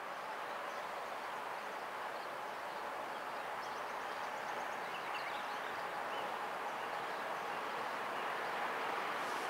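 Distant train approaching along the rails: a steady rushing rumble that slowly grows louder, with birds chirping faintly.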